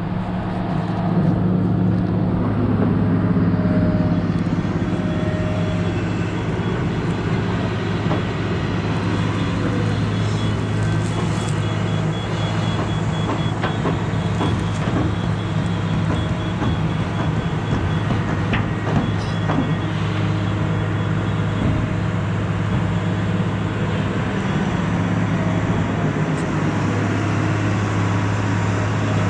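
Excavator diesel engine running steadily at working speed, with a few scattered knocks and clanks.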